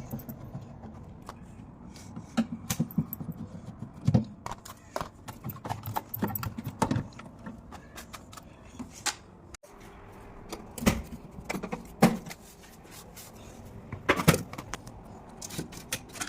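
Irregular metallic clinks, clicks and knocks of tools and parts being handled while a front-loading washing machine is worked on, with a few louder knocks in the second half.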